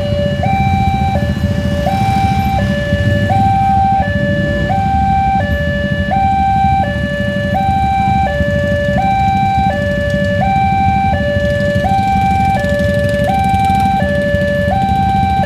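Railway level-crossing warning alarm sounding continuously: an electronic two-tone signal switching between a low and a high note about every three-quarters of a second, warning that the barrier is down for an approaching train. Waiting traffic idles underneath.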